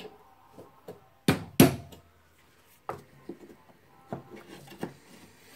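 Two sharp knocks in quick succession a little over a second in, then several lighter knocks and clunks: hand tools and rotary hammer parts being handled and set up at a bench vise for punching out.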